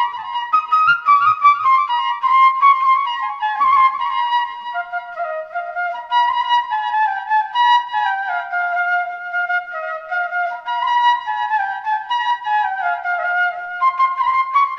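Background music: a solo flute-like melody moving up and down in small steps.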